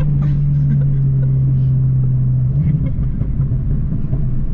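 Volkswagen Mk7 GTI's turbocharged four-cylinder engine droning at a steady pitch over low road rumble, heard from inside the cabin while cruising. A little over halfway through, the steady note breaks up as the engine load changes.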